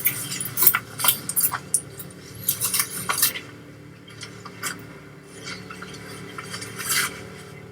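Clattering and clinking of hard objects being handled and moved about: a run of short knocks and clicks in the first few seconds, then a few scattered ones.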